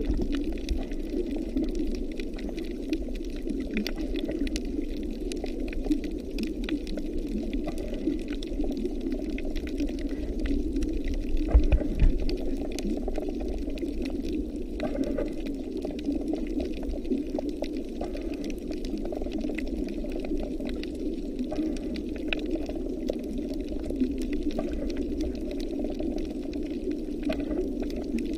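Underwater ambience on a coral reef: a steady, muffled watery rush with scattered small clicks and crackles, and a brief louder low thump about twelve seconds in.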